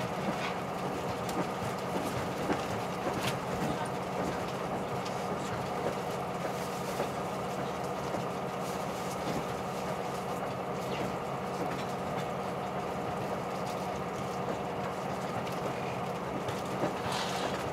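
Cabin noise of a KiHa 183 series diesel express train under way: a steady engine drone and running rumble, with a few scattered clicks from the wheels and track.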